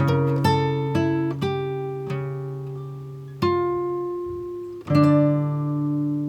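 Background music: an acoustic guitar picking and strumming notes that ring out and fade, with a fresh strum about three and a half seconds in and another near five seconds.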